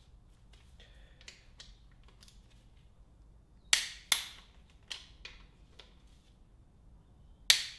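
Click-type torque wrench snapping as it reaches 50 ft-lb on the connecting-rod cap bolts of a Ford 302 V8: two sharp double clicks about four seconds apart, with lighter ticks between.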